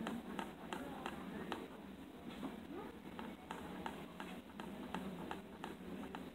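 Basketball being kept spinning on a fingertip, with light, fairly regular ticks about three a second, over a steady low background hum.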